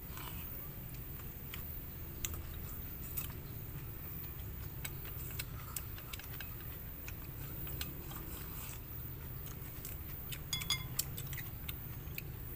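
Eating sounds: scattered light clicks of chopsticks and spoons against small metal bowls, with a little chewing, over a low steady background rumble. About ten seconds in there is a quick run of clicks, some with a short metallic ring.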